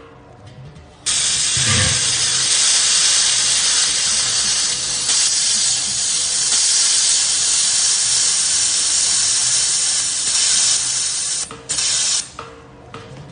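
Handheld fiber laser welder working along a stainless steel seam: a loud, steady hiss of shielding gas and weld that starts abruptly about a second in, breaks briefly near the end, then stops.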